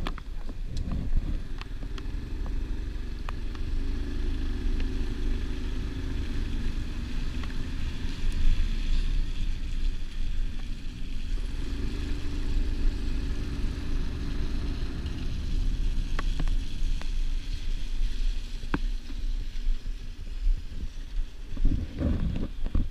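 Motorcycle riding on a wet road: the engine drones steadily under heavy wind buffeting on the microphone.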